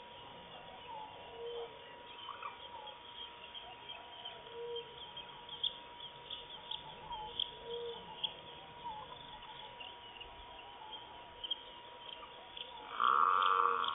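Forest birds calling at dusk: many short high chirps, with a short low call repeating about every three seconds, over a faint steady whine. Near the end a loud buzz lasts about a second.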